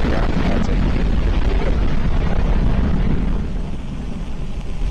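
Firefly Alpha rocket's four Reaver first-stage engines during ascent: a loud, dense rushing noise, heaviest in the bass, whose upper part fades about three seconds in as the rocket climbs away.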